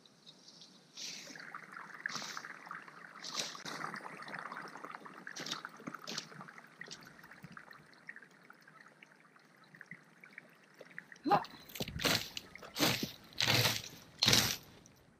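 Fan-shaped leaf rake scraping through dry leaves and debris in a garden bed: a softer rustling scrape at first, then five quick, loud, rough strokes close by, about two every 1.5 seconds, in the last few seconds.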